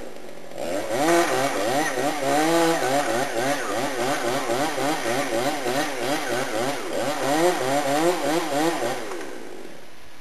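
Chainsaw running at high revs for about nine seconds, its engine pitch wavering rapidly up and down as it works through the tree, starting just under a second in and cutting off near the end.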